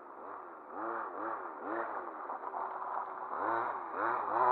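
RC car's motor revved in short throttle blips, its pitch rising and falling again and again.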